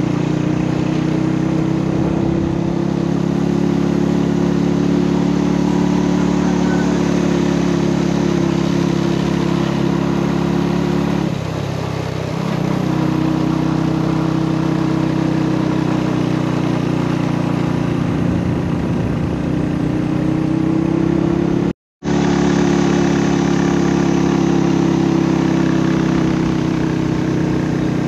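Honda Wave 100 motorcycle's small single-cylinder four-stroke engine running steadily while climbing a mountain road. About eleven seconds in, the engine note drops for about a second, then picks up again.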